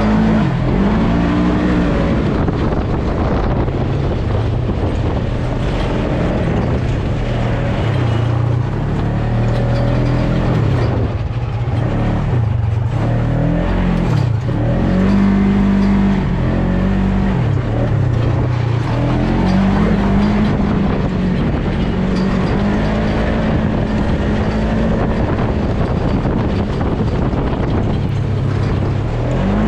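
Polaris RZR side-by-side driving off-road, its engine running continuously with the pitch rising and falling again and again as the revs change.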